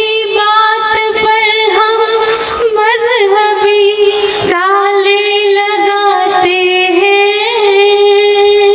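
A woman singing Hindi poetry in long held notes with a slight waver in pitch, and short breaks between phrases.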